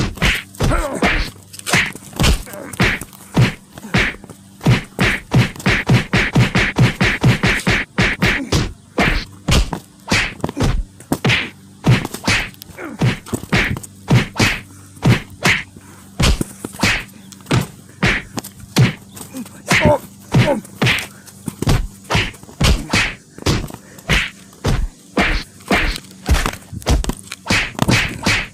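A long run of sharp whacks and thuds, a few a second, coming much faster for several seconds about a quarter of the way in.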